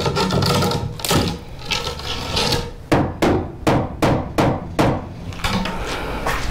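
A hammer knocking a wooden shipping crate apart: scraping and creaking of boards and nails at first, then a quick run of about seven sharp blows, roughly three a second.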